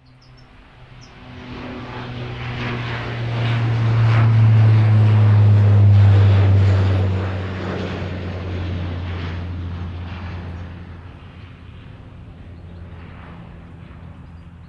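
Dash 8 Q400 turboprop at takeoff power passing by, its Pratt & Whitney PW150A engines and propellers making a loud low hum. It swells to a peak about five seconds in, drops in pitch as it passes, then fades away.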